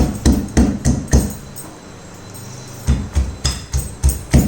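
Pestle pounding hard giloy (Tinospora) stem pieces in a small mortar: a steady run of thuds, about three or four a second, that stops for about a second and a half and then starts again.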